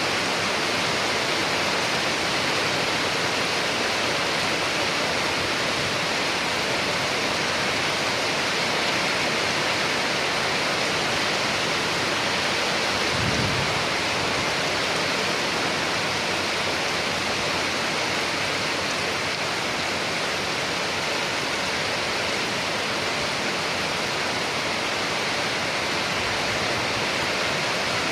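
Steady, even rainfall with no let-up. A brief low thump about halfway through.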